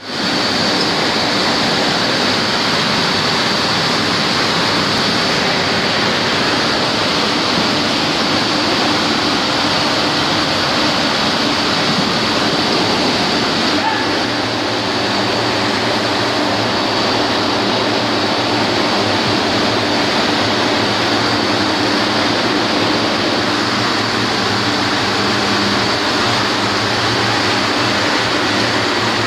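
Steady, loud machine noise of a running E60-H comber and its gear drive, with a low hum and a thin high whine over an even rushing din.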